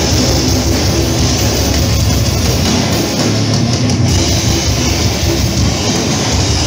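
Heavy metal band playing live: distorted electric guitars over a drum kit with a rapid, pounding bass drum, loud and dense.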